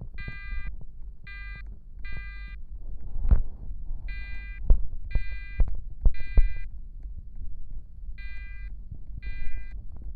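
Fire alarm horns sounding the temporal-3 evacuation pattern: three short beeps about a second apart, a pause, then three again. They are fairly faint under low rumbling and frequent knocks, the loudest knock about three seconds in.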